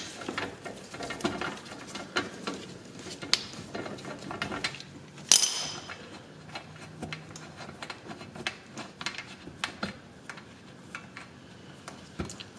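Ratchet and 10 mm socket on an extension turning out the bolts of a plastic underbody cover: scattered clicks and small metallic clinks, with one sharp ringing clink about five seconds in.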